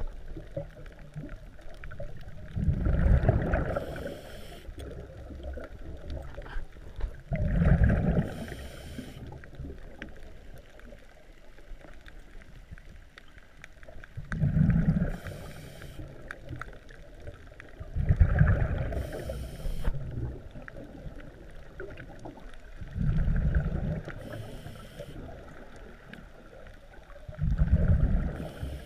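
A scuba diver breathing through a regulator, heard underwater: six gurgling exhalations of bubbles a few seconds apart, each followed by a short hiss as the diver breathes in.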